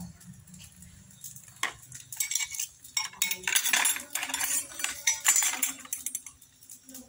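Kitchen utensils and dishes clattering and clinking: a run of sharp knocks and scrapes that grows busier and louder toward the middle, then dies away near the end.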